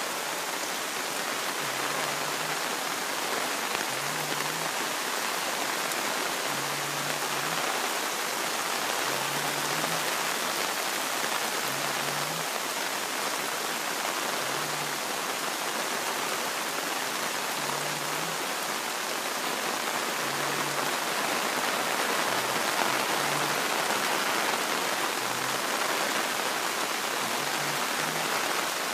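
Water of a creek running steadily as it starts to flow down its formerly dry bed, an even rushing sound.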